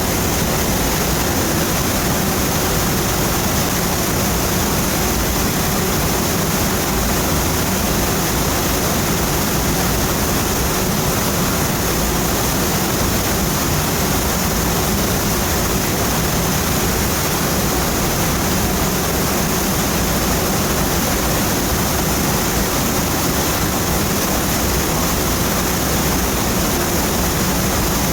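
Steady, loud rush of a waterfall, water pouring and splashing onto rock without a break.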